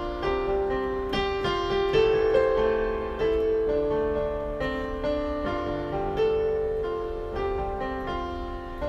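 Background piano music: a slow melody of struck notes left to ring.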